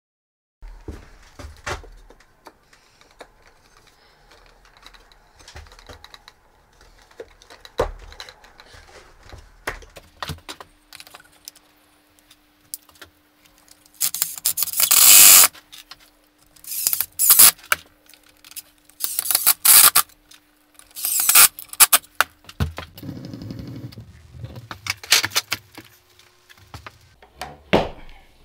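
Scattered clicks and knocks of wood being handled, then a Ryobi cordless drill boring holes into a pine board in four short bursts of about a second each, with a few more knocks near the end.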